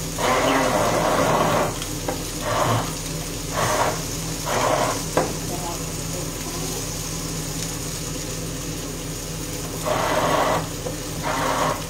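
Octopus pieces with diced zucchini and cherry tomatoes sizzling in a frying pan, a steady hiss with several short louder bursts.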